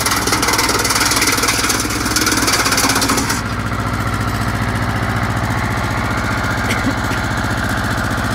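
Tractor engine running steadily to drive a PTO drum wood chipper, with a loud high hiss over it that cuts off suddenly about three and a half seconds in, leaving the engine running alone.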